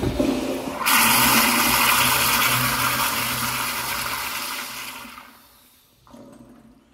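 2005 Eljer Newark 1.6-gallon tank toilet flushing: a loud rush of water that swells about a second in and dies away over the next four seconds, followed by a quieter hiss as the tank begins to refill.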